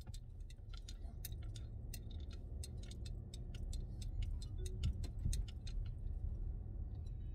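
Low, steady rumble inside a moving car's cabin, with a run of quick, uneven clicks over it that stop about six seconds in.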